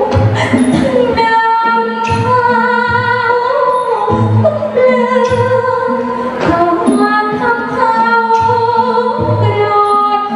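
A woman singing a likay verse in long, wavering held notes through a microphone, over instrumental accompaniment with a low drum beat recurring about every second.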